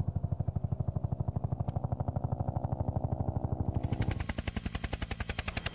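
Helicopter rotor blades beating in a rapid, very even rhythm of about ten beats a second over the steady run of the engine. About four seconds in the sound changes, the beat growing weaker and a hiss coming in higher up.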